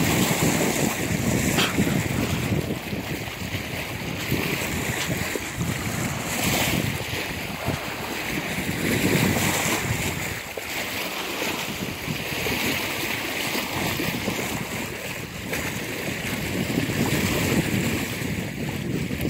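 Wind buffeting the microphone over water washing along a sailboat's hull, a steady rushing noise that rises and falls in gusts.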